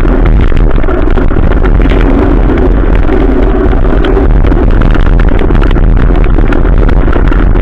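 Vehicle on the move in the rain: loud, steady wind and road rumble with engine noise and many scattered sharp ticks.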